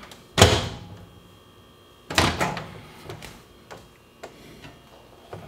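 Microwave oven door, heard from inside the oven: it shuts with a loud thunk about half a second in, then is opened again with another loud clunk about two seconds in, followed by a few lighter knocks.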